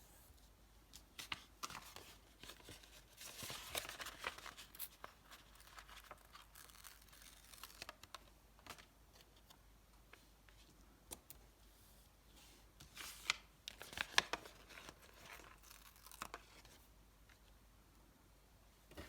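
Stickers being peeled off their backing paper and the paper sheet rustling, in two longer bouts about three to five seconds in and again about thirteen to fifteen seconds in, with scattered light clicks between.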